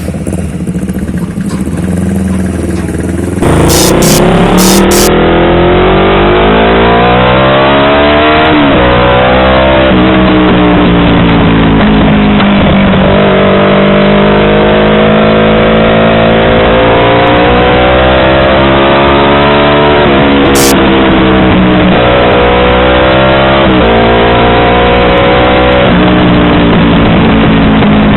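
Yamaha R25 parallel-twin engine through a WRX aftermarket exhaust: a steadier, quieter note, then about three and a half seconds in it gets much louder, with the revs climbing and dropping several times.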